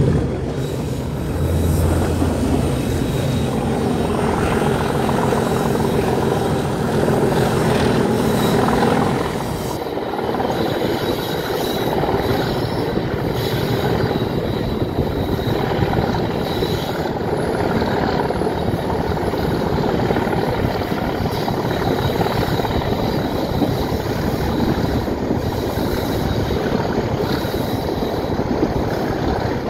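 Class 37 diesel locomotive's English Electric V12 engine running steadily under load at the head of the train, heard from an open carriage window together with wind and the wheels on the track. About nine seconds in, the engine's steady note fades back and the wheel clatter and wind noise take over.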